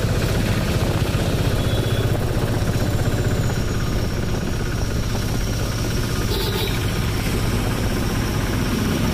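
A motor vehicle's engine running steadily with a fast, even pulsing, heard from on board as it moves slowly along a street.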